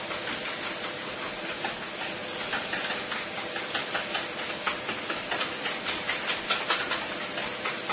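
Whisk beating an egg, sour cream and milk mixture in a plastic bowl: quick, irregular clicks and scrapes against the bowl, over a steady sizzle of onions, leek and diced ham frying in a pan.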